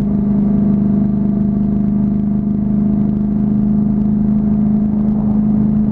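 Honda CTX700's parallel-twin engine running at a steady cruise, holding one even pitch, with low wind rush over the microphone.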